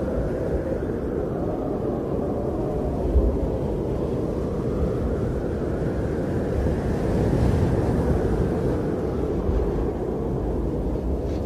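Blizzard wind blowing and buffeting the microphone with a steady low rumble, swelling in a gust about two-thirds of the way through.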